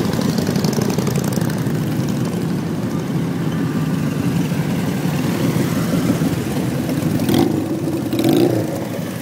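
Motorcycle engine running steadily while riding, the revs rising about seven seconds in.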